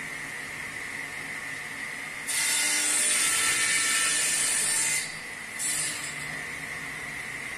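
Sliding table saw running, its blade cutting through a wooden board: a loud cut begins about two seconds in and lasts a couple of seconds, followed by a second brief cut near the end.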